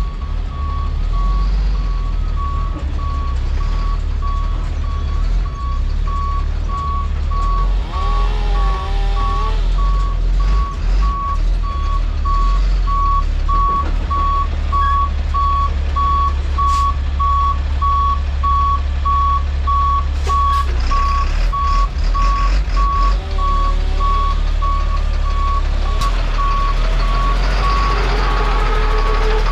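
Truck backing up with its reversing alarm beeping over and over at one steady pitch, over the low rumble of its engine, as it reverses a towed wood chipper into place. A few brief gliding squeals rise and fall partway through.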